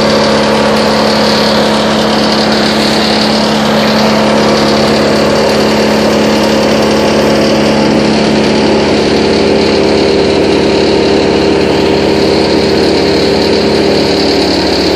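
Towable wood chipper's engine running steadily at a constant pitch, with the chipper's noisy whir on top.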